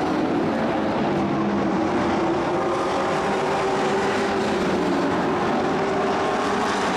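Engines of several dirt-track racing trucks running at speed around the oval, a steady mix of overlapping engine notes.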